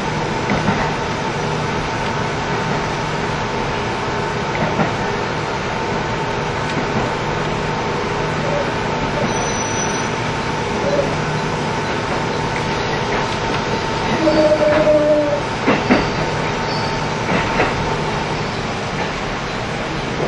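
Running sound inside a KiHa 75 diesel railcar: a steady rumble of engine and wheels on rail with a constant hum. About fourteen seconds in comes a short high tone, followed by a couple of sharp clicks.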